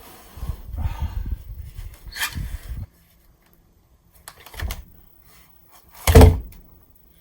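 Heavy wooden railroad-tie beam being rolled into place: a low rumbling for about three seconds, a small knock, then a heavy thud about six seconds in as it drops home.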